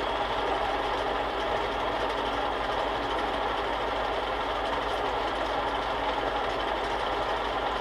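Small benchtop metal lathe running steadily, its spindle and gear train making an even whir with a light rhythmic rumble underneath, while the end of a threaded rod is turned down in light passes.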